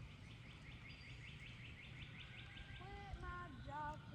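Faint bird song over a low background rumble: a quick trill of about fifteen short, falling chirps, about six a second, followed by a few lower, bending calls.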